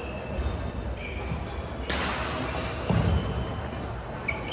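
Court sounds of a badminton doubles game in a large sports hall: a sharp crack about two seconds in, a dull thump about a second later, and short squeaks of sports shoes on the wooden court near the end.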